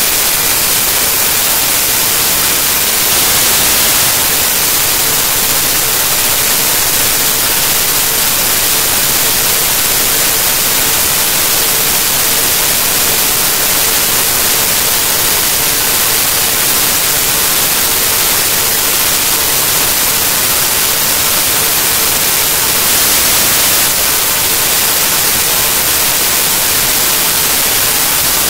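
Loud, steady hiss of static, strongest in the treble, with a faint steady tone underneath.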